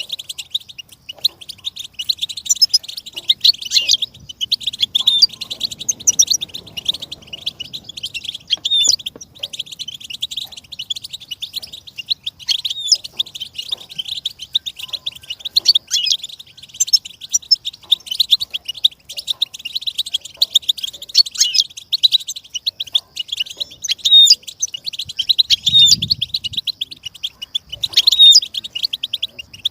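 Goldfinch song: a fast, unbroken twitter of chirps and short trills.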